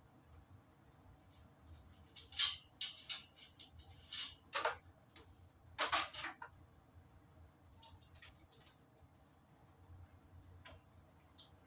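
Metal hand tools clinking and clanking against metal: a cluster of sharp clinks between about two and seven seconds in, then a few faint taps.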